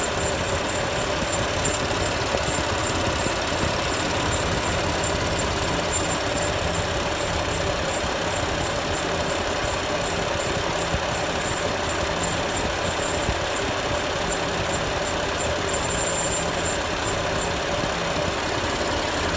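BMW M4 engine idling steadily, with a faint high-pitched squeak repeating in quick, even pulses over the engine note.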